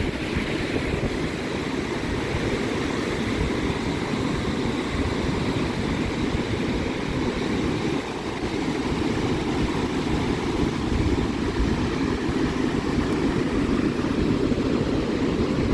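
Big rolling waves breaking and washing up on a Lake Michigan beach, a steady deep roar, with wind buffeting the microphone. The roar dips briefly about halfway through.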